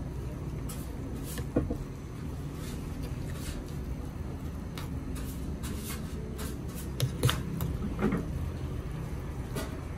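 Metal spoons and forks clinking and scraping against metal bowls, a few sharp clinks with the loudest about seven seconds in, over a steady low background hum.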